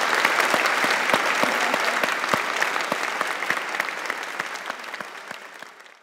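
Audience applauding, a dense steady clapping that fades out over the last few seconds.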